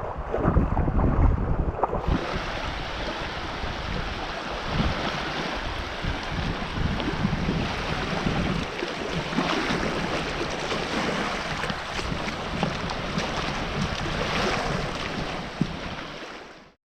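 Wind rumbling on the microphone, then from about two seconds in a steady hiss of surf and wind on a beach, which fades out at the very end.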